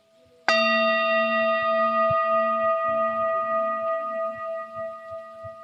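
Singing bowl struck once with a mallet about half a second in, then ringing with several layered tones that slowly fade.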